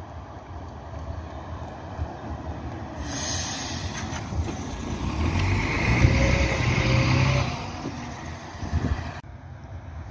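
A city bus drives past close by. Its sound builds as it approaches, is loudest as it passes about six seconds in with a low hum and a hiss, then fades. The sound cuts off abruptly just after nine seconds.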